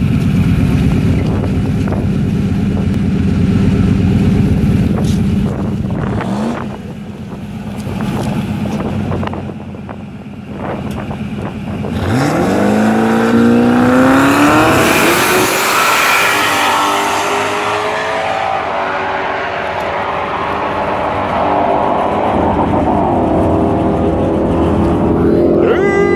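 Turbocharged Ford Mustang drag car's Coyote V8 running at the starting line for several seconds, with a short rev about six seconds in. About twelve seconds in it launches, its engine pitch climbing steeply with a loud hiss as it accelerates away down the strip.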